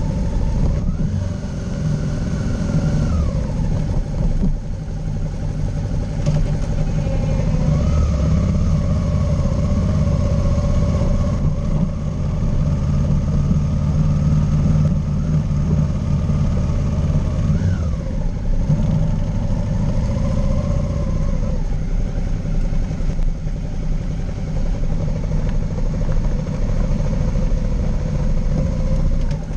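Motorcycle engine running under way on a dirt and gravel track, its pitch rising and falling several times as the throttle and gears change, over a steady low rumble of wind and road noise.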